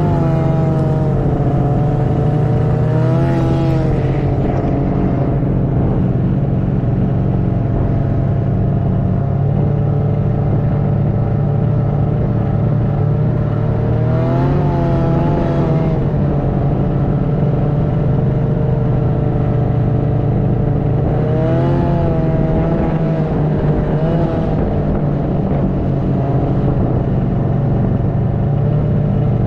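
Snowmobile engine running steadily under way, its pitch rising and falling with the throttle a few times: a few seconds in, around the middle, and twice more later on.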